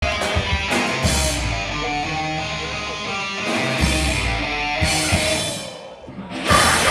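Live rock band playing, led by electric guitar with bass and drums; the sound thins out briefly near the end and then the full band comes back in louder.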